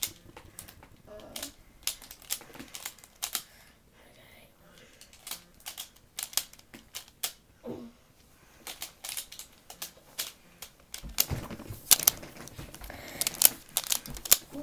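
Plastic clicking and clacking of a Rubik's Megaminx twisty puzzle as its faces are turned quickly by hand, irregular at first and denser and louder in the last few seconds.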